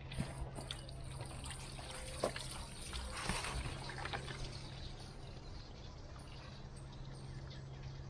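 Water pouring and trickling out of a tipped plastic cooler onto wooden deck boards, heaviest about three seconds in, with a few knocks of the cooler being handled near the start and about two seconds in. A steady low hum runs underneath.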